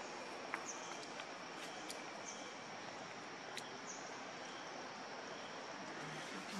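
Outdoor ambience: a steady, even hiss with a few faint scattered clicks and short high chirps.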